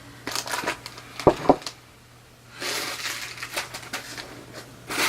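A ceramic mug knocked down twice on a hard surface about a second in, each knock short and ringing, with light handling clicks before it. From about halfway there is a steady rustle of packaging.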